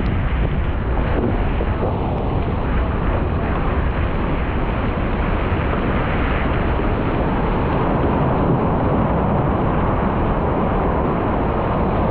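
Steady rush of wind buffeting the microphone and whitewater hissing along the hull of a wooden-oared surf boat running in on a wave.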